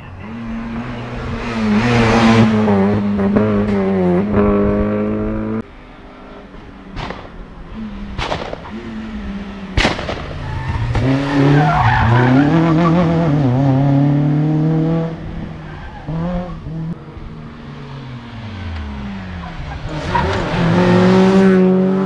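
Rally cars racing past on a tarmac stage one after another, engines revving high and dropping through gear changes, the pitch sweeping down as each car goes by. A few sharp cracks come near the middle, and there is some tyre squeal.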